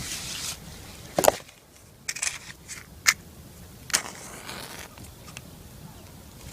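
A short hiss, then sharp clicks and scrapes about a second apart as a campfire is being lit.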